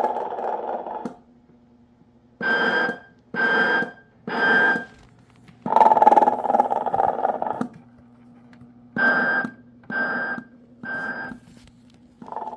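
Telco Snoring Santa toy playing its snore: one long snore, then three short whistling puffs, the cycle repeating about every five and a half seconds, over a low steady hum.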